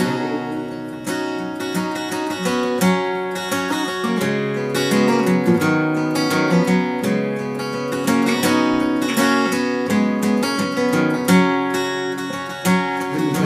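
Steel-string acoustic guitar played solo: an instrumental break of a folk tune, with no voice.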